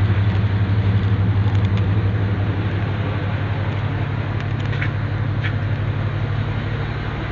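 Truck engine running at a steady idle, a loud even low hum, with a few faint light clicks over it.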